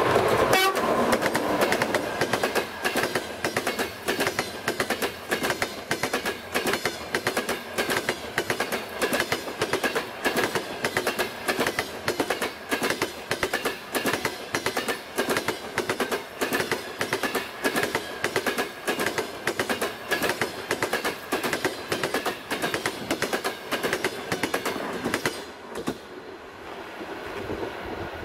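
Passenger train coaches passing close by at speed, their wheels clattering rhythmically over the rail joints in quick groups as each bogie goes by. The clatter stops about 25 seconds in as the last coach passes, leaving a fainter fading rumble.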